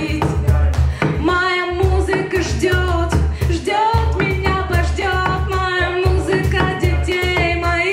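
A woman singing a song live, backed by plucked double bass notes and a steady percussion beat.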